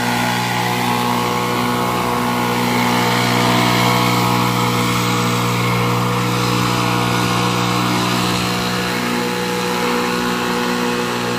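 An engine running at a steady speed, an even hum that holds without revving.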